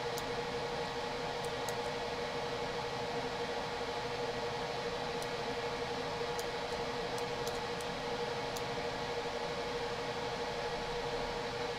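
Steady hiss from the recording's background noise, with a constant low hum and a few faint clicks scattered through.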